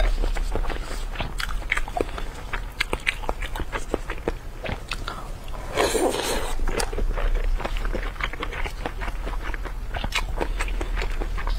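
Close-miked eating: a person biting and chewing skewered food from chili oil, with many short wet clicks and smacks of the mouth. About six seconds in, a louder, longer smack as food is pulled off a skewer with the lips.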